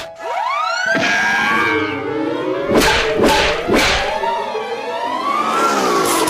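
Cartoon orchestral score with sliding, swooping notes, a rising swoop in the first second, and three sharp slapstick hits about half a second apart near the middle.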